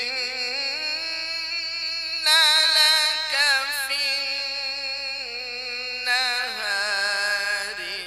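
A man's voice reciting the Quran in the melodic tajweed style, one long breath of held, finely ornamented notes that climbs and grows louder about two seconds in, then falls and rises again.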